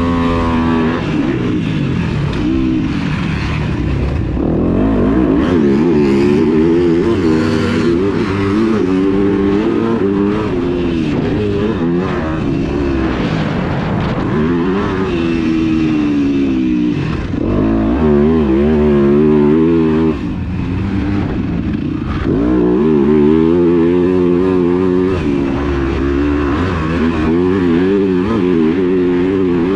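2021 Yamaha YZ250F four-stroke single-cylinder motocross engine with an FMF aftermarket exhaust, ridden hard. The pitch rises through the gears again and again and drops each time the throttle is chopped, with brief lulls in the middle.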